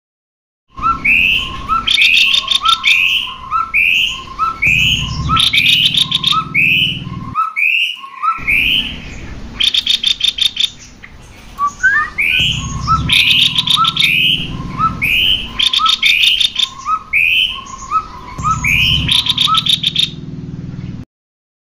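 Cucak kopi birds calling, male and female, in a fast, loud string of short repeated notes with rattling phrases mixed in. The calling breaks off for about a second near the middle, then resumes.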